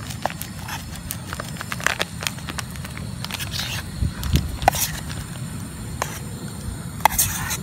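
A metal spoon clicking and scraping against a camping pot while stirring small fish in egg and flour batter, with a plastic flour packet crinkling at the start. A few short rustles break in over a steady low rumble.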